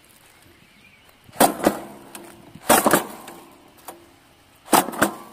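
Hand-held jab-type fertiliser applicator being worked into the soil: three pairs of sharp metallic clacks with a brief ring after each, as its dispensing mechanism snaps open and shut with each jab and lift.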